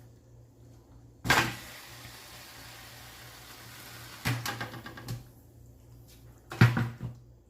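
Cookware knocking and clattering as hot cheese sauce is poured and scraped from a pan onto pasta in a pot. A sharp knock comes about a second in, followed by a few seconds of soft hiss, more clinking around four seconds, and a loud knock near the end.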